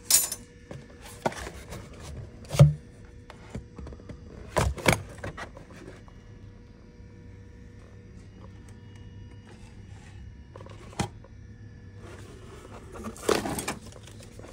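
Handling noise from cardboard boxes of steel knife blades on metal shelving: scattered knocks, clinks and rustles, over a steady hum.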